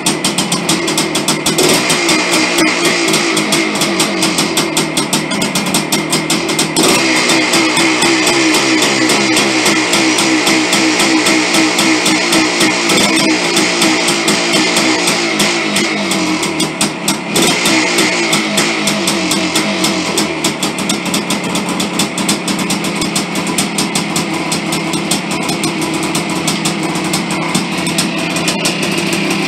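1983 Yamaha IT490's single-cylinder two-stroke engine running on its first start after a rebuild, with a rapid, rough firing beat and the revs rising and falling. The level sags briefly a little past the middle.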